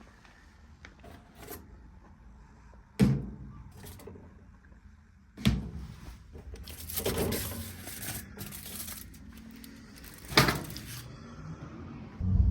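Food packaging being undone by hand: crinkling and tearing of wrapping, with three sharp knocks, about three seconds in, five and a half seconds in and just after ten seconds.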